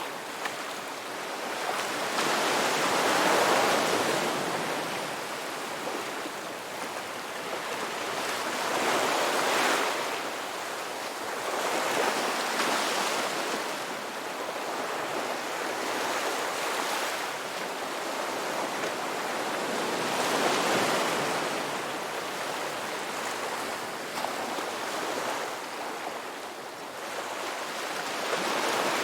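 Ocean waves washing in and drawing back, surging and fading in slow swells about every four to six seconds.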